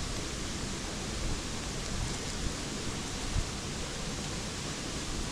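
Steady rushing noise of a flowing river, with one small knock about three and a half seconds in.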